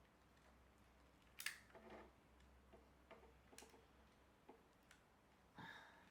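Faint, scattered clicks and taps of the plastic cover of a DJI Mavic Air remote controller being lifted off and handled. The sharpest click comes about a second and a half in.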